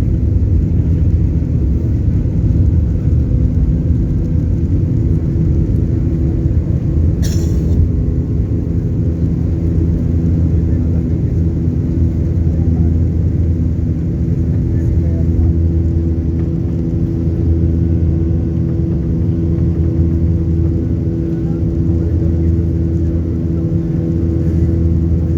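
Steady cabin drone of a Boeing 737-800's CFM56-7B jet engines and rushing air, heard from inside the cabin, with a low rumble and a steady hum. A short hiss cuts in about seven seconds in.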